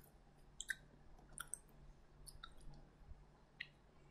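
Faint computer mouse clicks, about half a dozen short sharp clicks spaced irregularly, over near-silent room tone.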